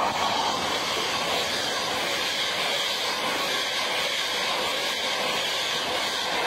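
LNER Azuma (Class 800/801) high-speed train passing the platform, a loud, steady rush of wheels on rail and air as its carriages go by.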